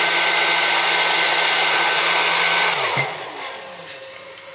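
An electric blower-type appliance run from a battery-fed DC-to-AC power inverter, a heavy load drawing about 100 amps. It runs with a loud, steady whir and whine, then is switched off about three seconds in and spins down with falling pitch. A much quieter whir is left behind.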